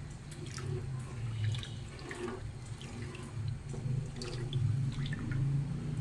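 Milk and grated carrots sloshing and splashing as a spoon stirs them in a large aluminium pot, with small scattered clicks of the spoon against the pot, over a low steady hum.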